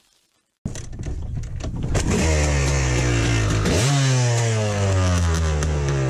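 KTM 300 XC-W two-stroke dirt bike engine running and being blipped while warming up in freezing weather. It starts about half a second in, and its pitch sinks slowly and jumps back up twice as the throttle is opened.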